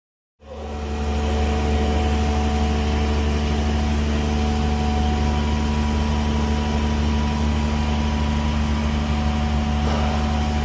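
A steady engine or motor hum with a deep drone and a few constant overtones, cutting in abruptly just under half a second in and holding unchanged.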